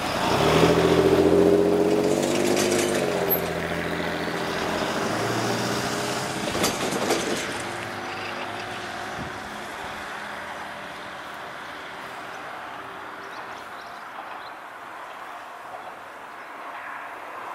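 Kanto Railway KiHa 2401 diesel railcar running away along the track: its diesel engine gives a pitched drone that is loudest at first, rises and then drops about three seconds in, and then fades steadily into the distance. A few sharp clicks come about seven seconds in.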